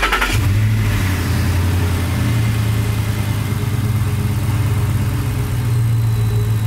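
Steady low hum from the engine bay at the truck's aftermarket cone-filter cold air intake, starting about a third of a second in and holding even throughout. It is the noise the owner noticed when turning the truck off.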